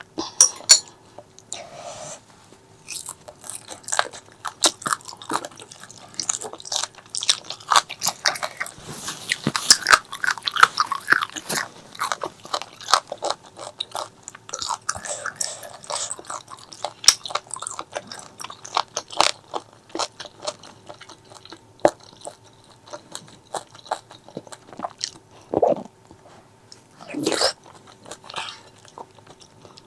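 Close-miked eating: biting and chewing with many sharp crunches and wet mouth clicks, busiest about a third of the way in, with two louder drawn-out mouth sounds near the end.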